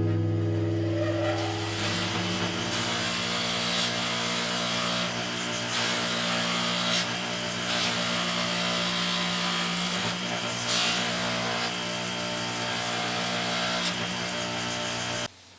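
Electric power-tool motor running with a steady hum, overlaid by a rushing, rubbing noise that swells and eases in stretches as the work is pressed to it. It stops abruptly near the end.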